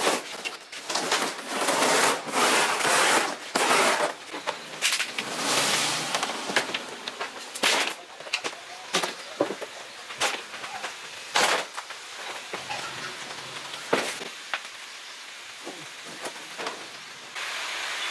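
Irregular knocks, scrapes and clatter of old plastic and fibreglass jet ski hull parts being dragged and handled. The sounds are busiest at first and then become scattered sharp knocks. A steady rushing hiss starts abruptly near the end.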